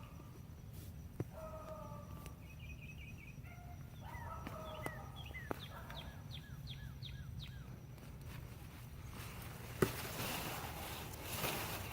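Birds calling: short repeated calls, then a quick run of downward chirps. About nine seconds in comes a rustling scrape of soil being dug, with one sharp knock.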